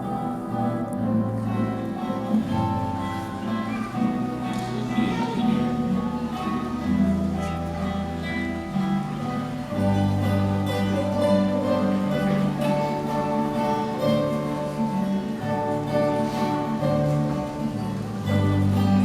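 Guitars playing an instrumental passage of a song, with held bass notes changing every second or two under a plucked melody.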